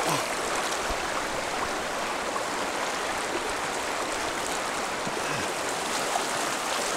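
Shallow river with a strong current rushing steadily over stones.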